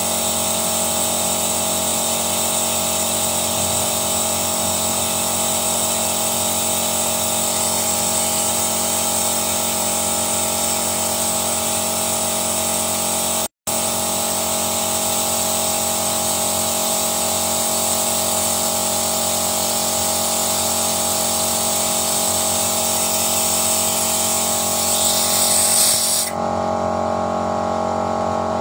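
Steady machine hum with a high air hiss from the carbon-cleaning rig, a hanging canister of Carbon Cleaner fluid on a compressed-air hose feeding into a car engine. The sound drops out for a split second midway, and near the end the hiss cuts off suddenly while the hum carries on.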